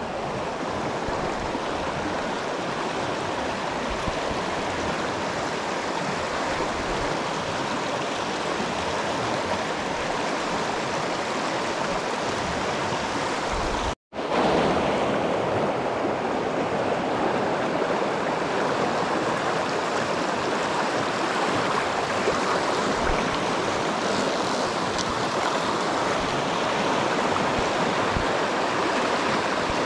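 Shallow, rocky river riffle rushing steadily over stones. There is a brief dropout about halfway through, and the rush is slightly louder after it.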